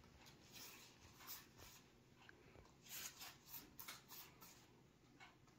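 Faint strokes of a pastry brush spreading melted butter over thin sheets of phyllo dough: soft, papery swishes, with a quick run of them about three seconds in.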